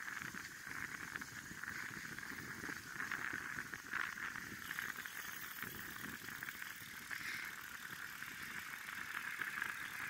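Bicycles rolling along a paved road: steady tyre noise and light rattling with a continuous hiss.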